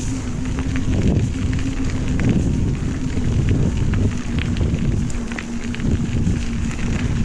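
Wind rushing and buffeting over the microphone of a rider on a moving electric bike, with a steady low hum and scattered small ticks.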